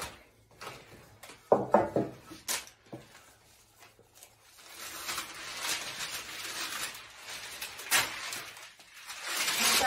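Wooden spoon scraping thick oat batter out of a ceramic mixing bowl into a baking dish. A few sharp knocks of spoon on bowl come in the first couple of seconds, then a steady scraping hiss.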